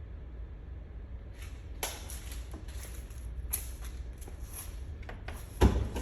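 Boat gear being handled: a run of short rustling and scraping noises with a sharp knock about five and a half seconds in, over a steady low rumble.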